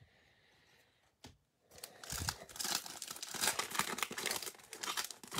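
A Panini Status basketball card pack's plastic wrapper crinkling and tearing as it is ripped open by hand. After a quiet start with a single click, the rapid crackling starts about two seconds in and keeps on.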